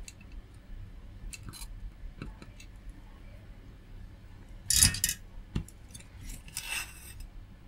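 Workbench handling sounds as a soldering job on a circuit board is finished: small clicks and taps, then a short loud metallic scrape or clatter about five seconds in, a sharp click and a soft rustle.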